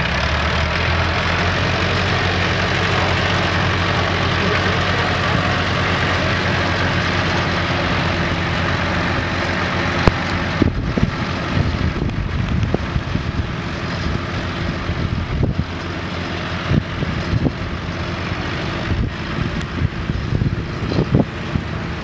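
Vintage tractor engine running steadily as the tractor drives past close by and then pulls away across the field. From about halfway it grows a little fainter and irregular gusts of wind buffet the microphone.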